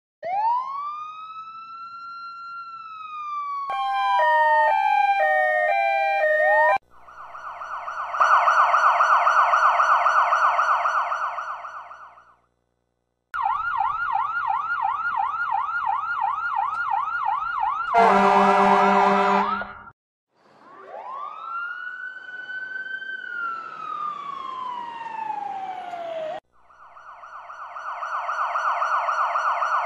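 A run of American police, ambulance and fire-truck sirens, old and modern, one after another. A slow wail winds up and falls away, then two alternating tones, then fast warbling and yelping sweeps. About 18 s in comes a short blast of a deep horn, followed by another slow wail rising and falling and a final fast warble.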